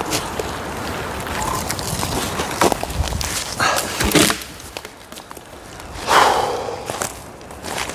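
Footsteps and scattered knocks and thuds, with a few brief scraping swishes.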